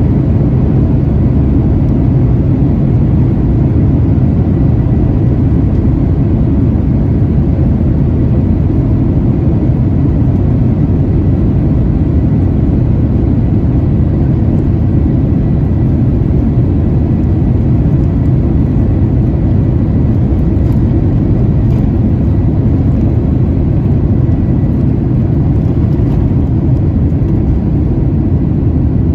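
Boeing 737-800 cabin noise heard from a window seat over the wing: a steady low rumble from its CFM56-7B engines at low thrust and the aircraft rolling on the ground while taxiing, with a faint steady whine above it.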